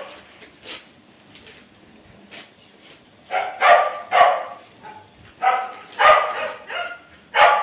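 A dog barking, about six short barks spread over the second half, after a quieter stretch.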